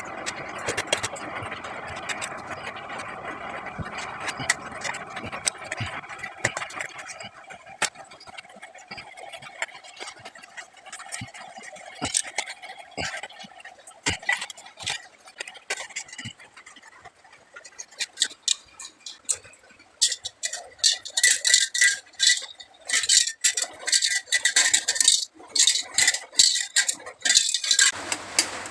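A spray paint can being handled: a steady hiss for the first several seconds, then scattered clicks and knocks. In the last eight seconds or so comes dense, fast metallic rattling.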